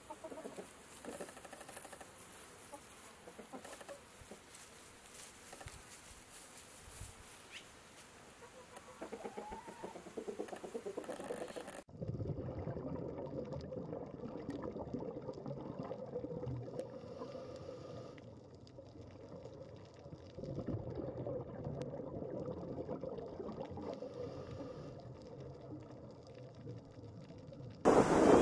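Chickens clucking faintly for about the first twelve seconds. Then the sound changes suddenly to a louder, muffled rumbling wash with little high end, which steps up again about twenty seconds in.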